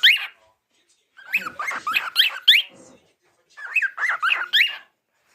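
Cockatiel chattering and whistling in three quick bursts of rising and falling chirps, with short pauses between them.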